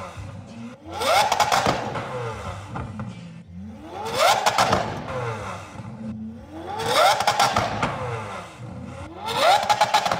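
Lamborghini Aventador SVJ's 6.5-litre V12 revved hard four times in a row while standing still. Each rev climbs quickly in pitch, holds for a moment and falls back to idle.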